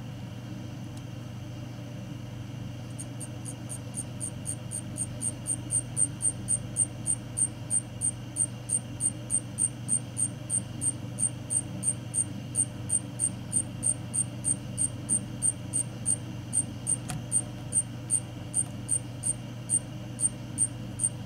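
Cricket chirping steadily, about three chirps a second, starting a few seconds in, over a steady low hum.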